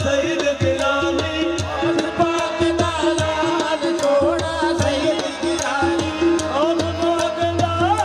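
Live Punjabi Sufi devotional song: tabla keeping a steady rhythmic beat under held instrumental tones, with singing.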